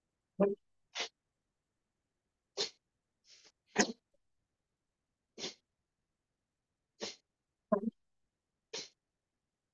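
Forceful exhalations through the nose in bhastrika (bellows breath), heard over a video call: about nine short, sharp bursts of rushing air at irregular intervals, with silence between.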